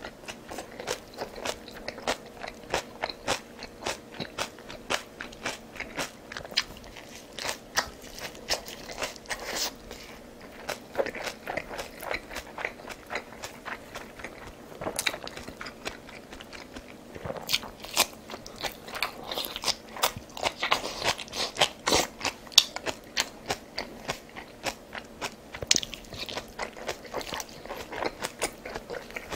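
A person eating close to the microphone: biting and chewing with a dense, irregular run of crisp crunches and clicks, busiest and loudest about two-thirds of the way through.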